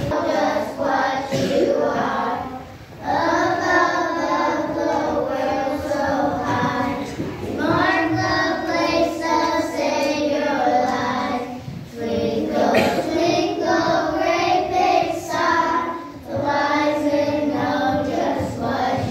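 A group of young children singing together, in sung phrases of about four seconds with short breaks between them.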